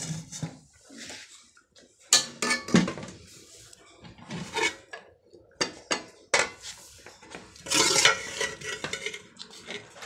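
Metal spoon clinking and scraping against metal cooking pots in irregular bursts, as curry is stirred and scooped.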